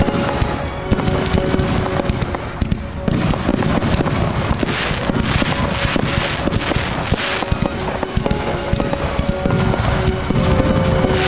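Aerial fireworks shells bursting in quick succession, a dense run of bangs and crackling, with music playing underneath.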